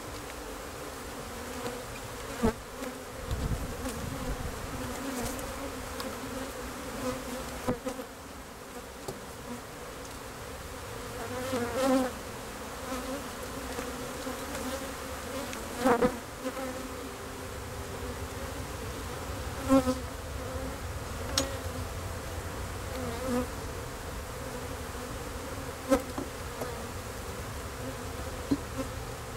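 Steady buzzing of a European dark honey bee (Apis mellifera mellifera) colony over an opened hive. A few short sharp knocks break through now and then as the wooden frames are handled.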